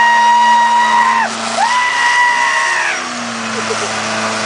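Two long horn blasts, each about a second and a half, the pitch sliding up as each starts and sagging as it stops. A vehicle engine runs steadily underneath.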